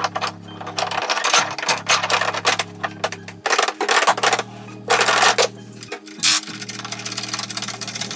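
Metal clinking and knocking, many quick irregular clinks, as a CV-joint driveshaft and its drive hardware are handled and fitted. Background music with sustained low notes plays underneath.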